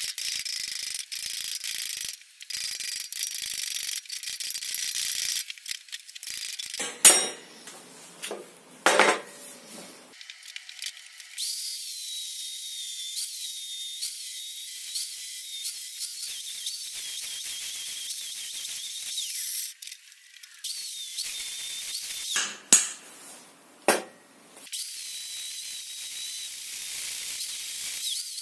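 Angle grinder working on the steel tube of a car shock absorber: a steady hiss with a high whine that wavers as the disc bears on the metal. Sharp metal knocks come in two pairs, about seven and twenty-three seconds in.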